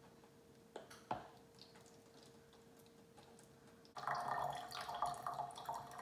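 Water poured from a glass measuring cup into a plastic water bottle, starting suddenly about four seconds in. Two faint knocks come about a second in.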